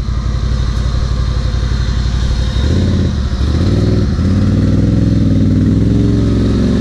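ATV engines: one idling steadily, then about two and a half seconds in an engine revs up and holds high revs under load as the stuck quad claws its way up out of a deep mud rut.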